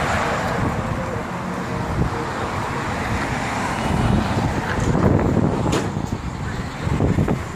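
Road traffic on a busy multi-lane street, a steady rumble of passing cars that swells as vehicles go by about four seconds in and again near the end.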